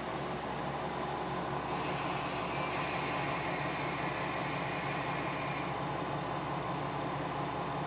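Diesel railcar's engine idling steadily while the train stands at the station, with a hiss that starts suddenly about two seconds in and stops about four seconds later.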